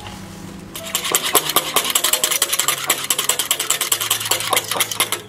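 Wire whisk beating a raw egg in a ceramic bowl, its tines clicking rapidly and steadily against the bowl's sides, starting about a second in.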